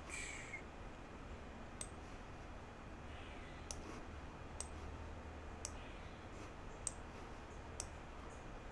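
Computer mouse clicking: about six single, sharp clicks at irregular intervals of roughly a second, over faint room hum.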